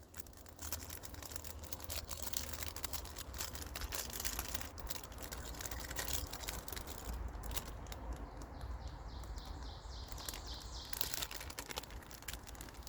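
Crinkling and rustling of a Pop-Tart's foil wrapper being handled and opened. A bird calls in a quick run of short repeated notes from about halfway through.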